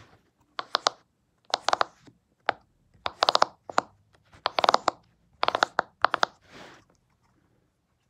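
Bubbles of a flexible silicone pop-it fidget toy being pushed through, in quick runs of sharp pops with short pauses between, stopping about a second before the end.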